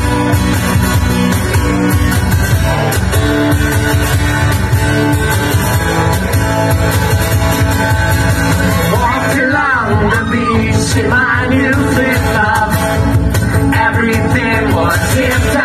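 Live band playing a rock song on guitar over a steady beat, with a man's voice singing from about nine seconds in.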